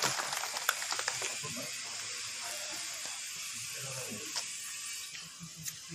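Faint, indistinct voices of people talking over a steady hiss; the level falls away during the first couple of seconds.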